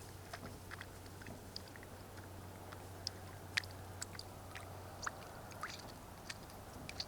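Small birds' short chip calls and clicks, scattered irregularly with a few brief downward notes, over a steady low hum.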